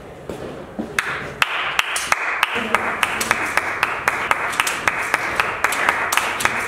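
A small group of people clapping their hands, starting about a second in and keeping up a steady patter of sharp individual claps.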